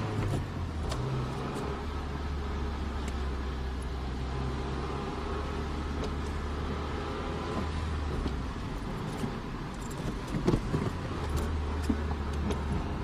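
2004 Honda Civic's manual transmission grinding under load as the car drives, over the steady engine drone, heard from inside the cabin; the grinding is the sign of a worn transmission input shaft bearing. A few sharp clicks come about ten seconds in.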